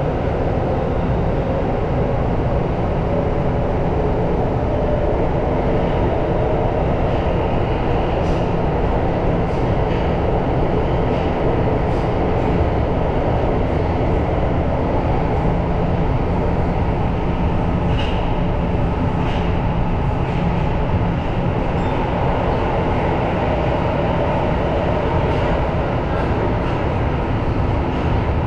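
Tokyo Metro Marunouchi Line subway train running, heard from inside the car: a steady rumble of wheels on rail with a faint whine and a few light clicks here and there.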